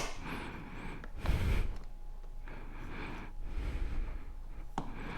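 A man breathing hard and exhaling with effort while twisting a screw lodged in a motorcycle tire with pliers, with one heavy exhale about a second in. Small sharp clicks from the pliers on the screw at the start and again near the end.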